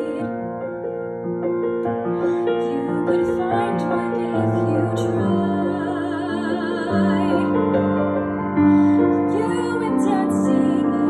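A woman singing a slow show tune in sustained notes with vibrato, over piano accompaniment.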